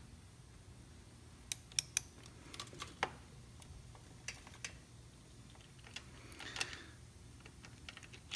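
Irregular light clicks and taps of metal parts being handled around a mountain bike's crank arm and bottom bracket spindle, a few close together near the start and more in small groups later.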